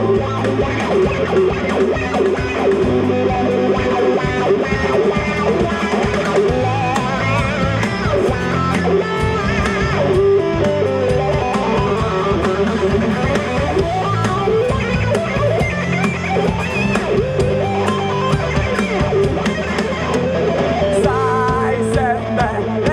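Live rock band playing an instrumental passage of a punk-metal song: an electric guitar lead with bends and vibrato over rhythm guitar, bass guitar and drums.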